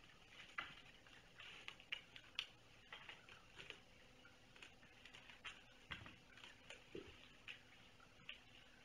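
Faint, irregular light clicks and taps, several a second, in a quiet room, with a soft low thump about six seconds in and another about a second later.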